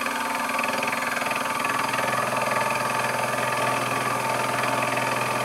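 Sherline vertical mill running with an end mill side-cutting across the face of a steel strap clamp: a steady motor whine with a rough cutting chatter, building slightly over the first second.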